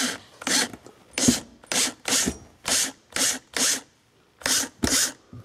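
Cordless drill driving a screw through a nylon strap into the floor, pulsed in about nine short bursts, roughly two a second.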